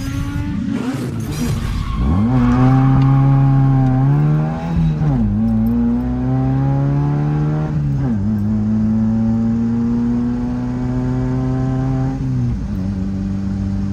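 Fiat 124 Spider's engine accelerating hard through the gears. The pitch climbs, drops at an upshift about five seconds in and again about eight seconds in, then falls off near the end.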